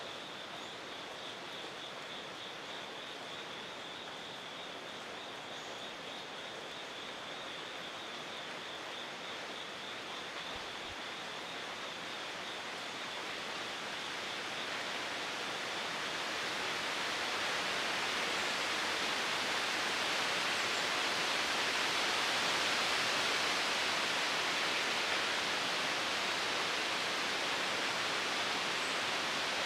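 Steady outdoor hiss of ambient noise that swells louder about halfway through and then holds. Over it, a high pulsing insect trill fades out before the swell.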